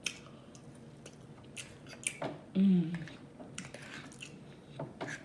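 A person chewing and biting food close to the microphone, with many small wet clicks and smacks of the mouth. About two and a half seconds in comes a brief hum of the voice that falls in pitch, the loudest sound.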